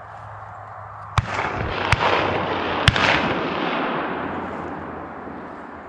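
Three shotgun shots fired close by, about a second apart, over a broad rushing noise that swells with the shots and then slowly fades.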